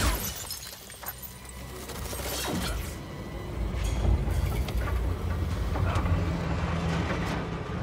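Action-film soundtrack: a sudden loud crash at the start, as a body is slammed into a helicopter's cracked windscreen, then dramatic music swelling together with helicopter engine noise that grows louder and rumbles low.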